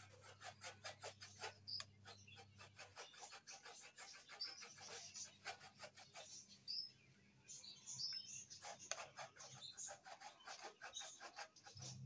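Faint, rapid, rhythmic scraping strokes of a hand tool working wood, in two runs: one through the first few seconds and another about nine seconds in. Birds chirp in between.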